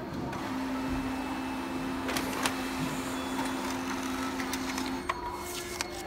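Desktop laser printer running a print job: a steady motor hum, with a second tone joining after a second or so, and several sharp clicks as the page is fed through and out.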